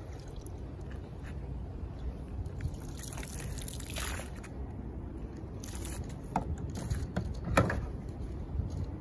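Water dripping and sloshing off a soaked towel lifted out of a bucket, over a steady low wind rumble, with a few short knocks near the end.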